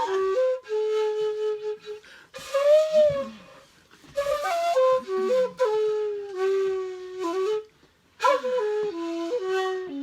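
A solo flute plays a slow melody of held notes that step up and down, in short phrases with brief pauses between them.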